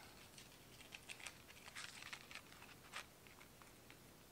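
Near silence with a few faint, scattered small clicks and taps from hands handling a card of stitch markers.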